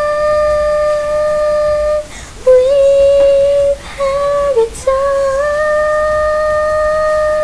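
A song's high vocal line holding long, steady sung notes. There are short breaks about two and four and a half seconds in, then one long note held from about five seconds in.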